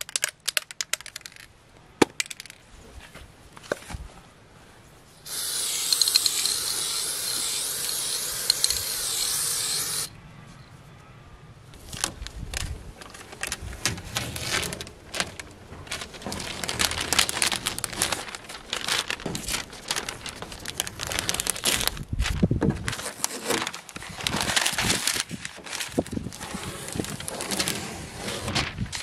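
Aerosol spray paint can hissing in one steady burst of about five seconds, spraying black paint onto a caravan's wall vent grille. Then newspaper masking and tape being peeled off and crumpled, a long run of crackling and tearing.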